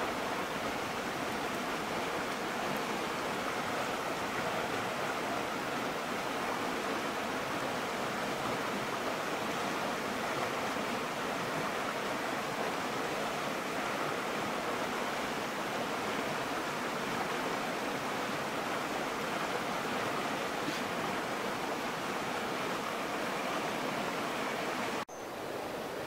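Mountain stream running over rocks: a steady rushing of water. It drops out for an instant about a second before the end, then carries on a little quieter.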